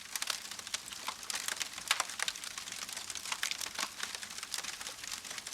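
Wood bonfire crackling: a dense, irregular run of small sharp snaps and pops.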